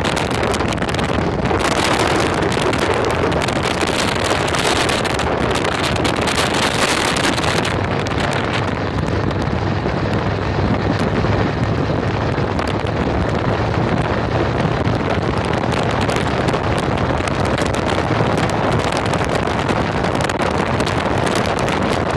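Wind rushing over the microphone of a phone held outside a moving vehicle, over the steady drone of the vehicle and its tyres on a wet road. The high hiss softens about eight seconds in.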